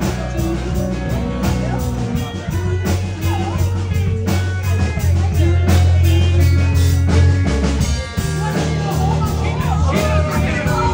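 Live band playing in a crowded bar: drums, bass and electric guitar with a woman singing into a microphone, over the chatter of the crowd. A low bass note is held for a couple of seconds past the middle, and the music briefly drops away just after.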